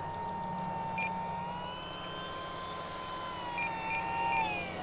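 Electric motor and propeller of an E-flite Commander mPd RC plane whining steadily at low power on the landing approach, the pitch dropping near the end as the throttle comes back. A few short high beeps sound about a second in and again near the end.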